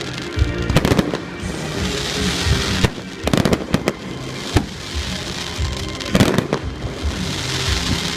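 Fireworks display: a string of sharp bangs from bursting shells mixed with crackling and hiss, over music playing steadily.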